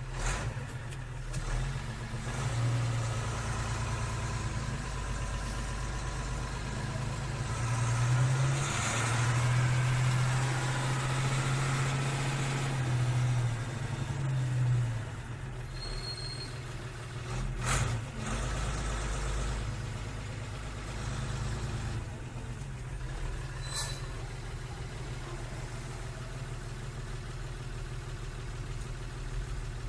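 Vehicle engine sound effect running steadily, swelling louder for several seconds in the middle before settling back, with a couple of sharp clicks later on.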